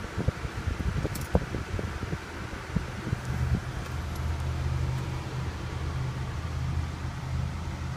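Steady low hum inside a Nissan Murano's cabin, setting in about three seconds in, after a few light clicks and knocks in the first seconds.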